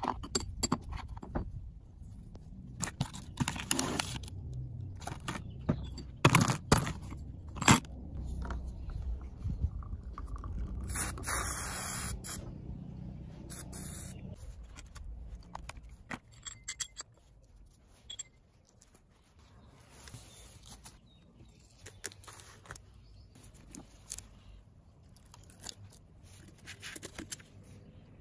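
Small metal hardware handled on a wooden workbench: clicks, knocks and scrapes of a screw, nut and washers, the loudest knocks about six to eight seconds in. About eleven seconds in, an aerosol can hisses for about a second onto rusty washers in a plastic tub, then once more, briefly.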